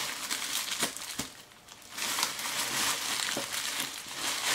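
Aluminium foil cap crinkling and crackling as hands press and adjust it over the hair, with a short lull about a second and a half in.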